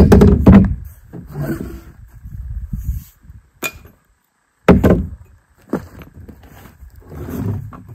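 Aluminium tent poles being handled and set down on a plywood deck: a few sharp knocks and clinks, the loudest right at the start and again just before five seconds in, with rustling and scraping between.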